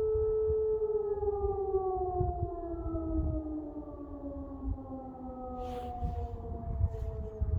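E57 electromechanical siren holding its steady tone, then from about a second in winding down, its pitch sliding smoothly lower as the rotor slows at the end of the signal.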